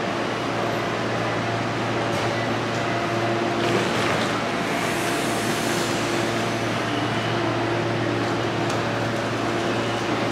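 Steady background noise of a large railway terminal: a constant hum of ventilation and machinery, with a short swell of hiss about four to six seconds in.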